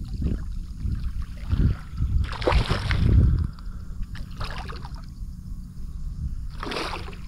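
Water splashing and sloshing beside a kayak, with low knocks against the hull and several short splashes, as a small hooked redfish is brought alongside.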